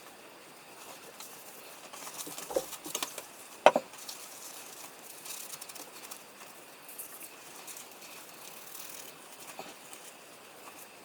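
A few light clicks and taps, then one sharper knock with a short ring about four seconds in, over faint hiss.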